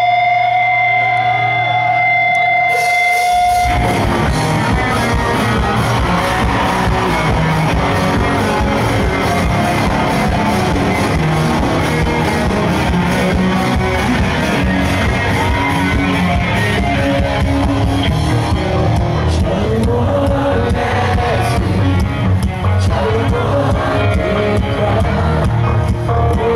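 Rock band playing live: a single high note is held for about the first three seconds, then the full band with drums and electric guitar comes in loud and keeps playing.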